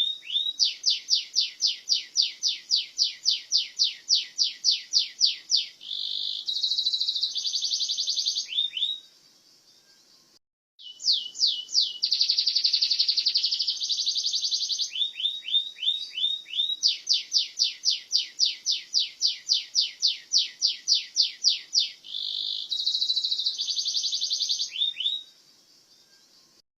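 Domestic canary singing: fast trills of repeated sweeping notes, several a second, alternating with steady buzzy rolls. The song pauses for about two seconds near the middle, then starts again, and it stops shortly before the end.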